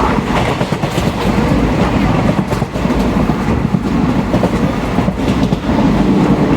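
Train running along the rails: a steady, loud rumble with the clatter of wheels over the track.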